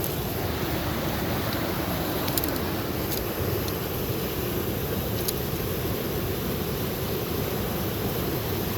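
Steady rushing of river water pouring over a low dam, with a few faint clicks.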